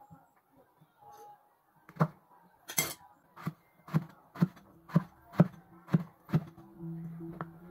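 Kitchen knife slicing eggplant into rounds on a wooden chopping board: a steady run of cuts starting about two seconds in, roughly two a second, each ending in a knock on the wood. A short hiss sounds near the first cuts.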